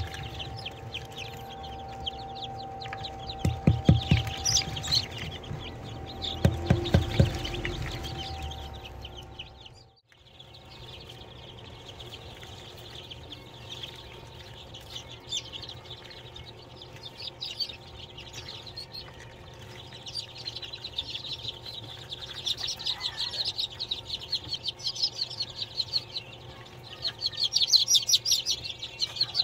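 A crowd of newly hatched chicks peeping continuously in quick high cheeps, densest and loudest in the last few seconds. A few loud low thumps come around four and seven seconds in.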